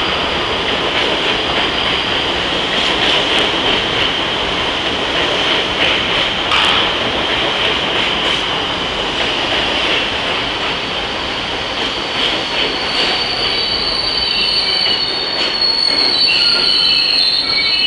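New York City Subway 7 train pulling into the station: steel wheels running on the rails with a constant high squeal and scattered clicks over rail joints. Over the last few seconds, sharper, wavering high squeals build as the train slows to a stop.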